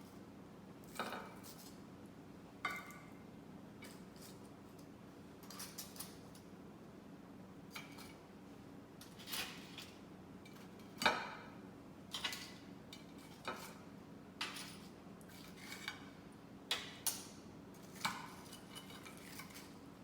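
Metal utensils clinking and knocking against a pan and dishes in scattered, irregular strikes, the loudest about halfway through, over a faint steady hum.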